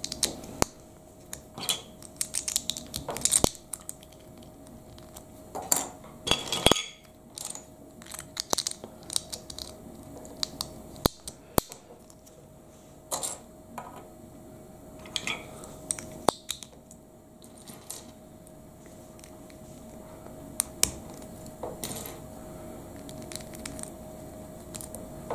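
Plastic Lego bricks clicking and clattering in irregular bursts as they are picked from the loose pile and pressed together by hand.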